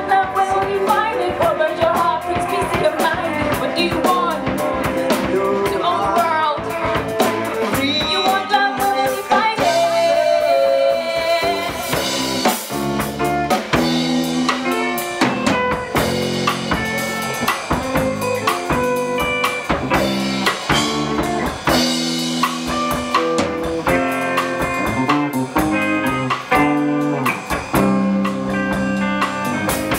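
Band music with a drum kit and guitar, playing a steady beat.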